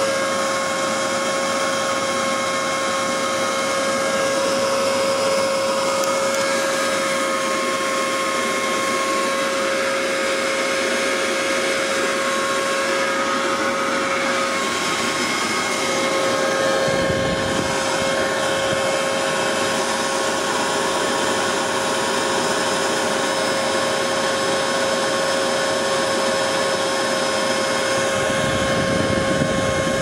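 Leaf blower running steadily with a constant whine, blowing air through a diesel heater's exhaust heat exchanger. A low rumble joins about halfway through.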